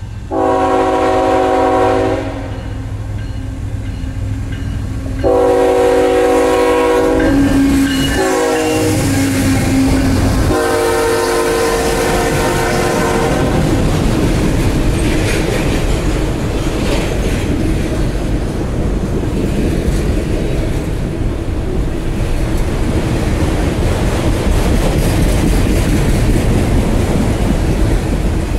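CSX ET44AH freight locomotive sounding its multi-chime air horn in four blasts, long, long, short, long, the grade-crossing signal. The pitch drops during the third blast as the locomotive passes. The horn gives way to the loud rumble and clickety-clack of the empty autorack cars rolling by.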